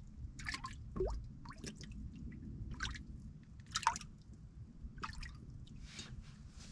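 Small water plops and drips around a boat, about seven of them at irregular intervals, over a low steady rumble.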